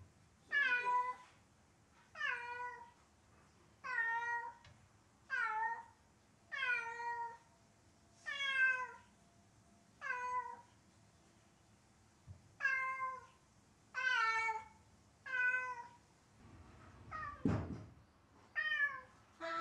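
A grey cat meowing loudly over and over, about a dozen long meows roughly one every second and a half, each falling in pitch at the end. The cat is calling for its owner, who has gone downstairs. A dull thump comes near the end.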